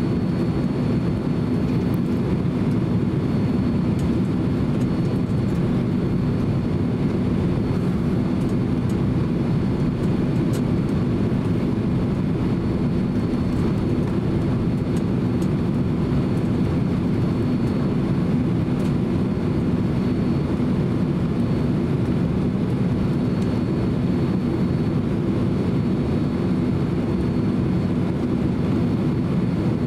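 Cabin noise of a Boeing 767-300 taxiing: a steady low rumble from the twin jet engines at taxi power and the rolling airframe, with a faint high whine and occasional faint ticks.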